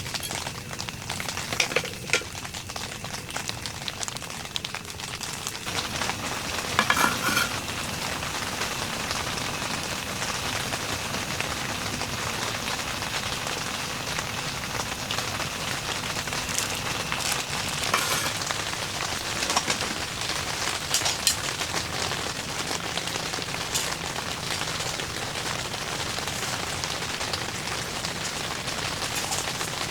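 Steady heavy rain falling and pattering on a surface, with a few short knocks or rustles now and then.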